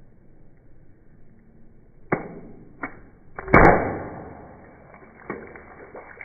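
CO2 airsoft pistol fired at water balloons: a few sharp snaps and impacts, the loudest about three and a half seconds in, dying away over about a second.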